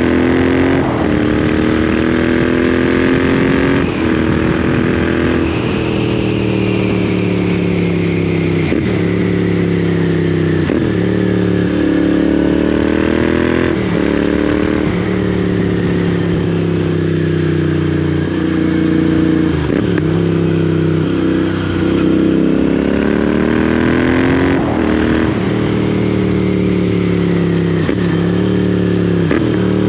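Royal Enfield Interceptor 650's parallel-twin engine running through Lextek slip-on exhausts under way. The engine note climbs under acceleration and drops at each gear change, again and again.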